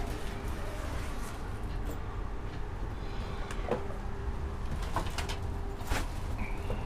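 Steady low rumble of a cruise ship running through high winds, with a faint steady hum, and a few light clicks and knocks about halfway through and later.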